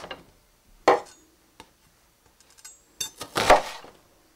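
Knife chopping an onion on a wooden cutting board: two sharp blows, one about a second in and a heavier thud in the second half.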